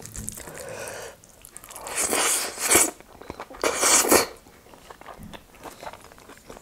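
Close-miked eating of rice and nettle dal by hand: soft squelching as the wet rice is mixed on the plate, then two loud wet mouth noises about two and four seconds in as a handful goes into the mouth, followed by quiet chewing.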